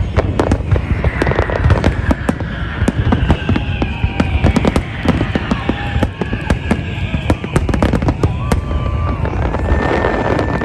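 Fireworks display: a dense, continuous run of sharp bangs and crackles, many shells going off in quick succession.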